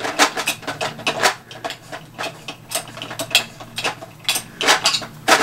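A 3/32 hex key turning a set screw in a 3D-printed plastic grip mount: a run of irregular small clicks and ticks as the key works and knocks against the plastic.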